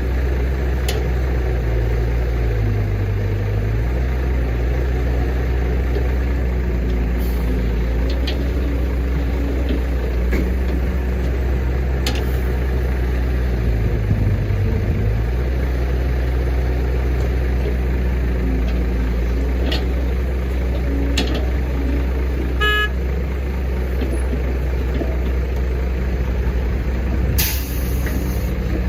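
Case 145D excavator's diesel engine running steadily under working load, its note shifting twice as the hydraulics are worked, with several sharp knocks. A brief horn toot comes about two-thirds of the way through, and a short hiss near the end.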